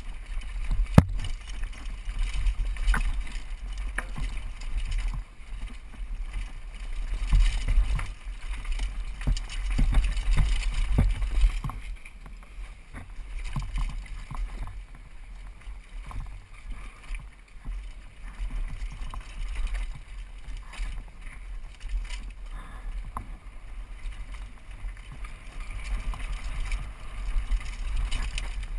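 Mountain bike descending a rough downhill trail, heard from a helmet camera: a steady low rumble of wind buffeting the microphone, with the rattle and knocks of the bike and tyres over rocks and roots. A sharp knock comes about a second in, and the clatter is busier for the first half before easing.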